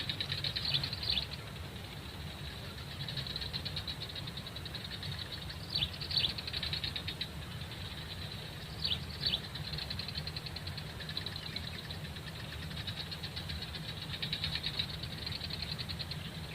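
Outdoor swamp ambience: a steady, high, rapidly pulsing chorus of wildlife, with short bird chirps breaking in a few times, over a low steady rumble.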